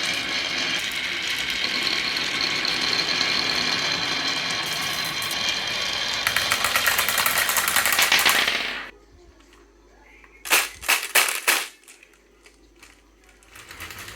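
Marbles rattling down a marble run track in a continuous clatter that turns into rapid clicking, then stops suddenly about nine seconds in. A few seconds later there are four sharp clacks close together.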